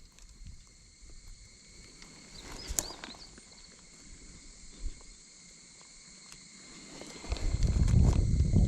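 Mostly quiet, with a faint steady high-pitched hum. About seven seconds in, a low rumble of wind on the microphone swells up and stays loud.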